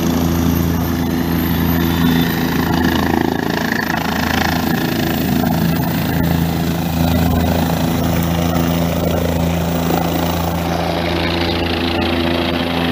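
Four-bladed light helicopter's engine and rotor running loud and steady as it lifts off and climbs overhead.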